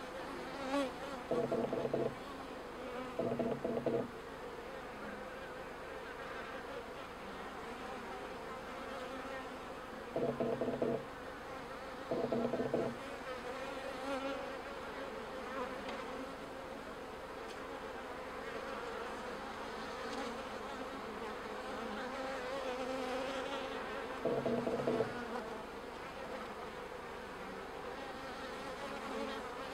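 Honeybees from a package colony humming steadily around an open top-bar hive. Five louder buzzes, each about a second long, come and go.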